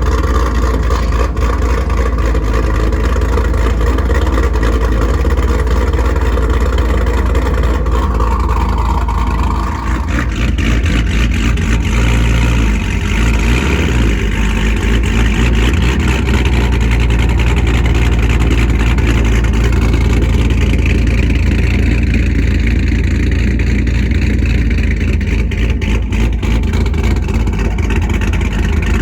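Modified Pontiac G8 LS V8 with an aftermarket cam and loud exhaust, running with a heavy low rumble. The engine note shifts around eight to ten seconds in.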